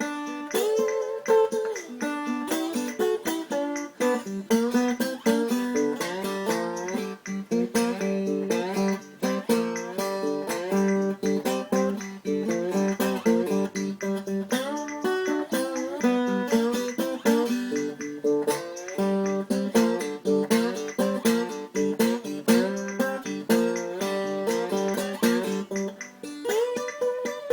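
Custom-built four-string tenor wine-box acoustic guitar played in a bluesy style: a steady run of single plucked notes and short melodic phrases.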